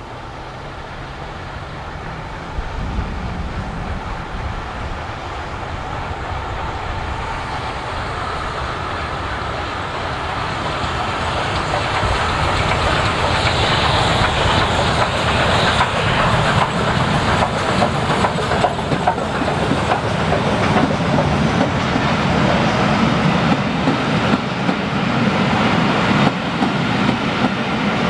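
LMS Jubilee class three-cylinder 4-6-0 steam locomotive hauling a train of coaches, approaching and passing, growing steadily louder. From about halfway on, the wheels clatter over the rail joints as the coaches go by.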